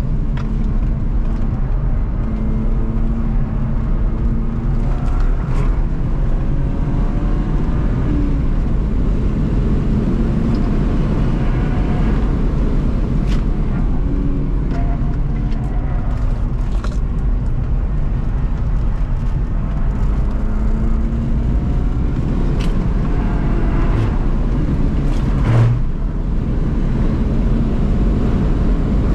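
BMW E36 323i's 2.5-litre straight-six engine, heard from inside the cabin, revving up and down as the car is driven hard through a course of bends, with road and tyre noise underneath. A brief low thump near the end.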